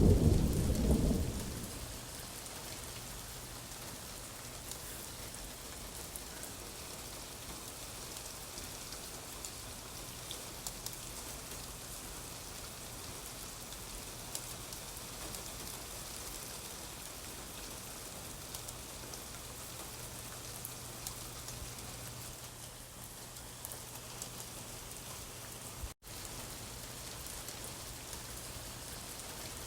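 Steady rain ambience, an even hiss of rain with occasional faint clicks, opening on the tail of a low thunder rumble that dies away in the first second or two. The sound cuts out for an instant near the end.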